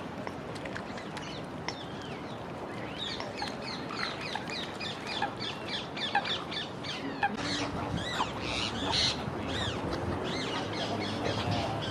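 Birds calling: many short, high chirps over a steady hiss, growing busier through the second half.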